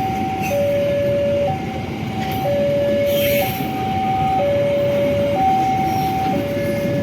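Electronic two-tone level-crossing warning alarm sounding, alternating a higher and a lower tone about once a second, over the rumble of a train passing.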